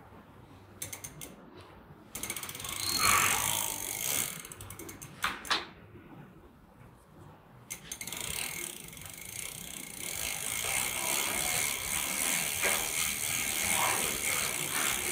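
Bicycle rear freewheel ratcheting as the crank and rear wheel are turned by hand to thread on a pedal, a steady fast clicking of the pawls from about eight seconds in. A few sharp clicks and knocks of handling come before it.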